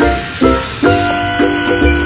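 Background music: a melody of short, repeated notes over a steady bass beat.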